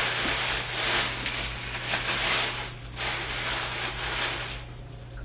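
Tissue paper crinkling and rustling in surges as it is pulled open and crumpled by hand, fading out near the end.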